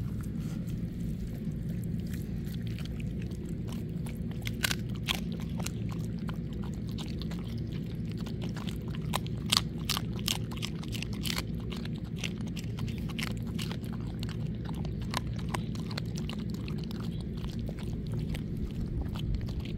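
A dog chewing and crunching a raw chicken quarter on the bone, with irregular sharp cracks and crunches from about four seconds in, over a steady low rumble.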